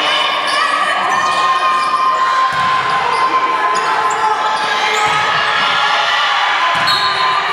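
Basketball game sounds in a large gym: the ball bouncing, shoes squeaking on the court and players and spectators calling out.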